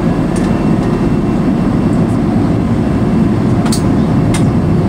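Steady low rumble of a jet airliner's cabin with its engines running while it holds for takeoff, with two faint clicks near the end.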